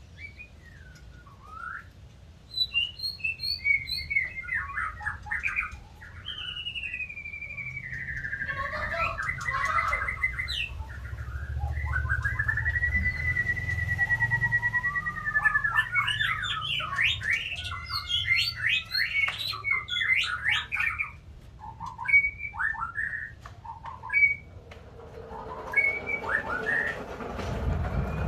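White-rumped shama (murai batu) singing a varied song of clear whistles, trills and fast repeated notes, with one long, steady whistled note held for about three seconds midway. A rustling noise comes in near the end.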